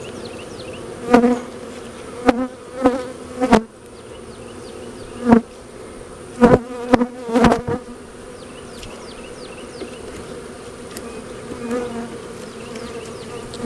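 Honeybees buzzing around an open hive, with individual bees buzzing loudly past the microphone about eight times. A few sharp clicks are mixed in.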